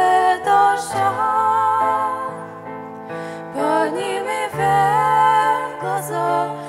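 Two female voices singing a Russian-language song as a duet, accompanied by a grand piano. The singing eases off around the middle and swells again.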